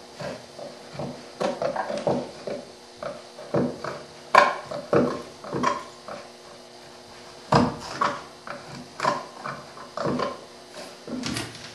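Hand-pushed bench chisel paring end grain to clean out the sockets of a half-blind dovetail: a series of short, irregular cutting strokes, some ending in sharp clicks, the sharpest about four and a half and seven and a half seconds in.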